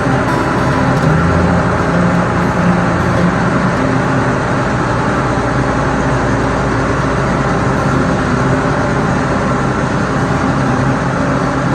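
Engine of farm machinery running steadily, with a slight shift in pitch in the first few seconds.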